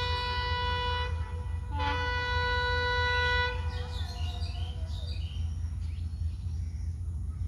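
Horn of an approaching train locomotive: a long blast that ends about a second in, then a second long blast lasting nearly two seconds. A steady low rumble runs underneath.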